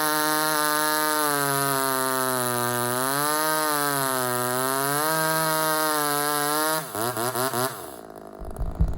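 Ported Homelite XL-76/XL-130 hybrid two-stroke chainsaw running at high revs, its pitch sagging and recovering once. Near the end the revs drop away and it falls to a lumpy idle. The saw is tuned a little lean.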